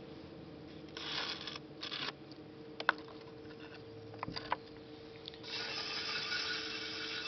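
Potter's wheel humming steadily under brief scraping and rubbing rustles from handling at the wheel, with a few sharp clicks and a longer rasping hiss near the end.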